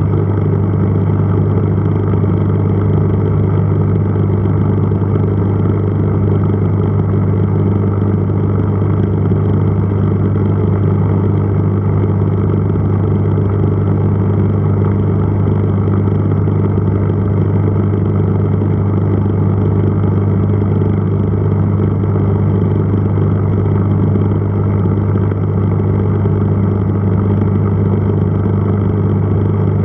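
Aquarium pump running: a loud, low, steady electric hum that does not change.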